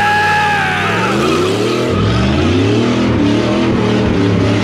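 Dodge 318 V8 in a Jeep DJ-5 postal truck revving up and down repeatedly during a burnout, with a tire squeal at the start that sags in pitch and fades after about a second.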